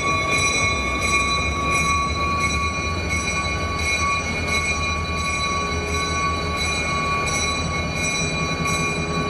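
B&O diesel locomotive running steadily: a constant low engine rumble with a steady high whine over it.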